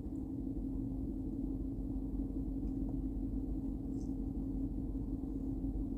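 Steady background hum: one low held tone over a low rumble, unchanging throughout.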